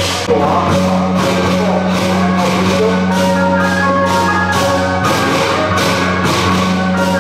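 Procession percussion music: large hand cymbals crashing about twice a second with a drum, while a melody plays over them.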